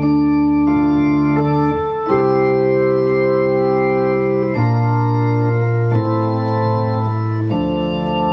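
Organ playing the introduction to a sung responsorial psalm: full, steady held chords that change about every one to two seconds.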